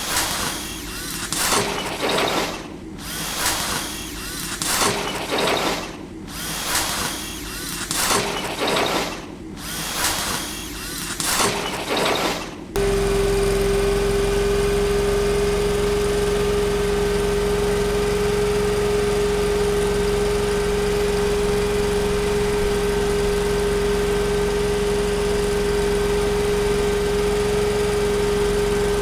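Factory machinery: a cyclic machine running in repeated noisy surges about every second and a half. About 13 seconds in it cuts suddenly to a different machine running with a steady drone and one high, constant hum.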